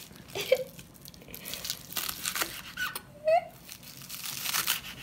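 Chef's knife chopping spring onions on a wooden cutting board: a run of irregular crisp cuts. A short voice sound comes about half a second in, and a louder one a little after three seconds.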